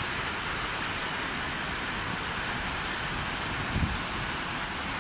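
Heavy rain pouring steadily onto a brick-paved yard, a dense even hiss, with one brief low thump about four seconds in.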